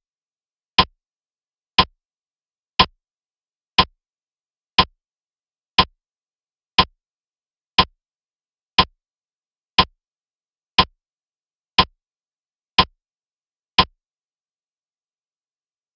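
Countdown timer sound effect: a short, sharp tick once a second, about fourteen times.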